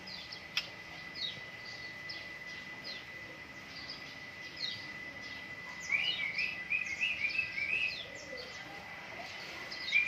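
White-rumped shama singing: a string of short, high, downward-sweeping chirps, then about six seconds in a louder quick run of notes lasting about two seconds. A thin steady high tone runs underneath, and there is one sharp click near the start.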